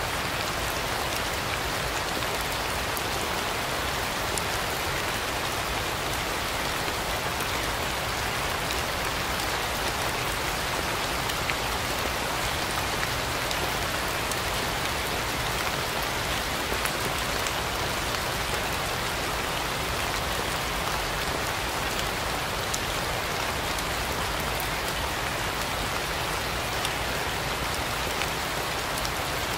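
Steady rain falling: an even hiss sprinkled with many small, sharp drop ticks.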